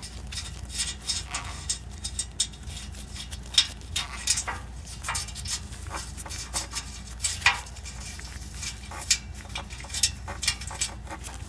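Light, irregular metallic clicks and scrapes of exhaust-flange nuts being spun off their studs by gloved fingers, with small ticks of metal on metal as the loosened nuts turn and shift.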